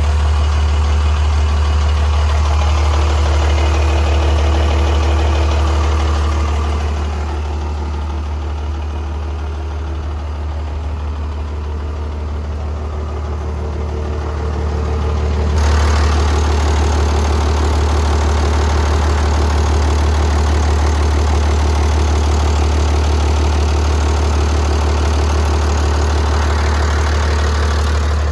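Komatsu WA100-3 wheel loader's diesel engine running steadily, a little quieter from about seven seconds in, then louder again from about fifteen seconds in.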